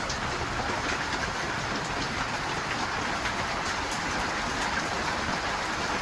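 Heavy rain falling hard, a steady roar with scattered faint drip ticks.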